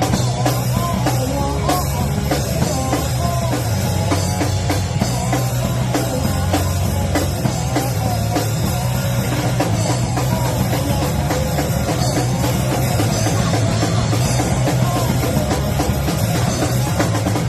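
A live rock band playing loud, dense music with a drum kit pounding away under guitars and bass, without a break.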